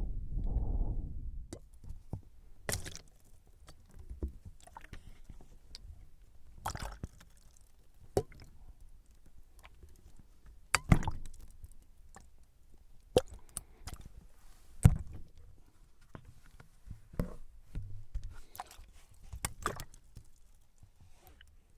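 A low rumble fading out in the first second, then scattered short clicks and knocks at irregular intervals, a few of them louder.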